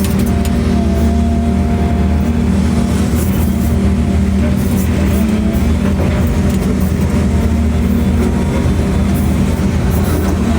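A heavy machine's engine running steadily under constant load, with scattered light clicks.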